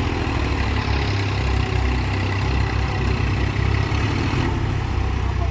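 Case 851EX backhoe loader's diesel engine running steadily with a deep, even rumble.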